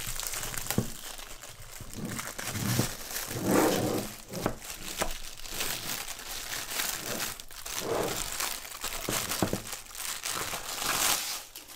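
Thin plastic wrapping bag crinkling and rustling as it is handled and pulled off a PC power supply unit, with sharp crackles, getting louder a few times.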